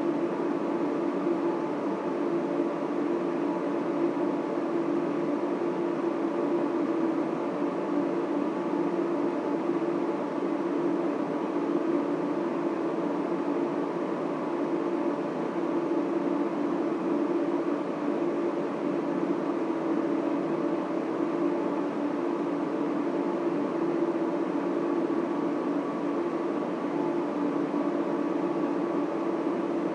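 Data center server and cooling fans running in a steady drone, with several steady humming tones over a broad rush of air.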